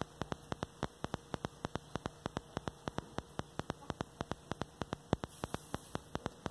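Rapid, regular faint clicking, about six clicks a second, over a faint low steady hum that stops about five seconds in.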